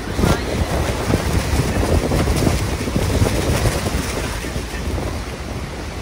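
Niagara's American Falls and the churning river below it: a loud, steady rush of falling and surging water, with strong wind buffeting the microphone.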